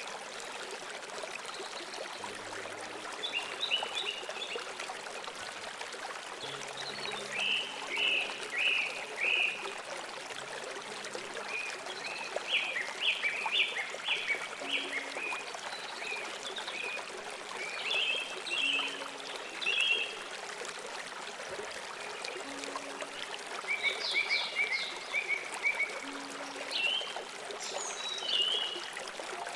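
A river or stream running steadily, with small birds chirping in short bursts of quick, repeated notes every few seconds.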